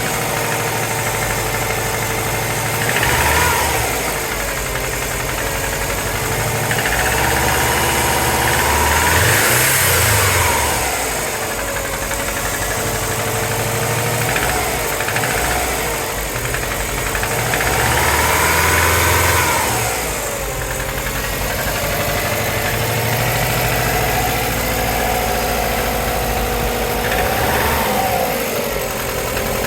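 JDM Subaru EJ205 turbocharged flat-four with catless up-pipe and downpipe, running just after a cold start, its revs rising and falling a few times. It carries a rattly ticking/knocking noise that the owner cannot yet place as valvetrain noise or rod knock.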